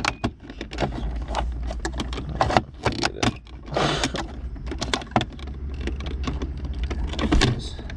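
Quick irregular clicks, taps and rattles of a screwdriver working against plastic and metal down in a car's center console while the automatic shift lever is jiggled. The shift-lock cable is being pulled aside by hand to release a lever stuck in park after its plastic interlock piece broke.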